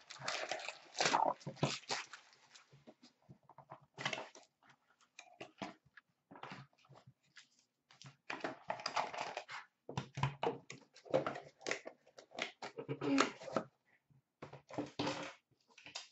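Foil wrapping paper crinkling and tearing as a gift-wrapped box is unwrapped, then cardboard and card packs rustling and rattling as the box is opened and emptied: a run of irregular short rustles and crinkles.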